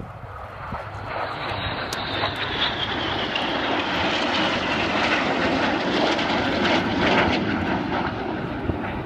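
BAE Hawk T1 jets passing in a display manoeuvre. Their jet noise builds over the first few seconds and stays loud, with a high whine falling in pitch early on as they go by.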